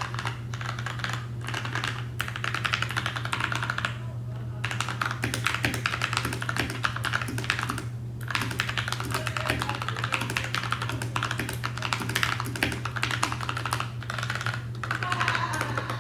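Continuous fast typing on a Magicforce 65 mechanical keyboard with tactile Gateron Brown switches drip-lubed with Superlube, a dense run of key clacks with brief pauses about four and eight seconds in. A steady low hum runs underneath.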